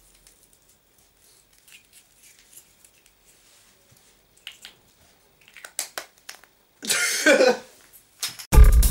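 Faint handling sounds as paper slips are rolled and pushed into plastic egg halves, with scattered small clicks. About seven seconds in there is a short vocal exclamation falling in pitch, and near the end a fast, rhythmic ticking music track starts abruptly and loudly.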